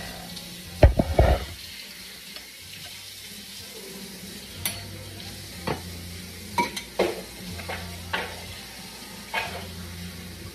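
Metal spoon clinking against a glass bowl while scooping and spreading tomato sauce onto pizza dough: a quick cluster of louder knocks about a second in, then single clinks every second or so.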